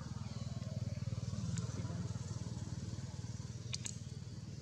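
Steady low engine rumble, like a motor running nearby, with two brief high ticks about a second and a half in and near the end.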